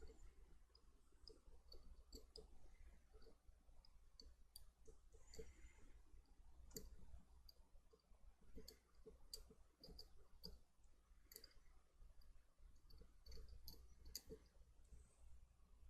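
Near silence, with faint, irregular small clicks and taps from small tools being handled over a low hum.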